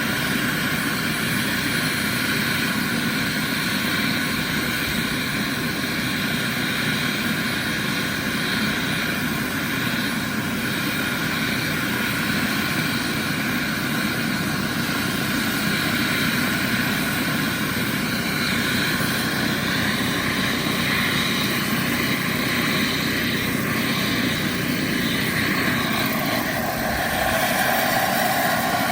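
Scale RC helicopter (Vario Bell 212) with a Jetcat PHT-3 XL model turbine running steadily, the turbine's whine mixed with the rotor sound. About 26 seconds in the sound shifts, with a new mid-pitched tone and a slight rise in level.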